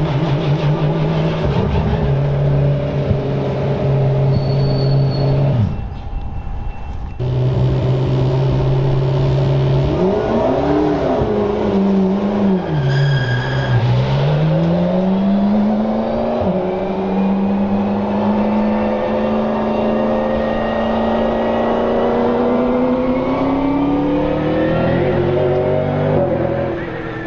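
McLaren 720S GT3 Evo's twin-turbo V8 running at low, steady revs, briefly cut off about six seconds in. The revs then rise and fall twice and climb slowly and steadily as the car pulls away.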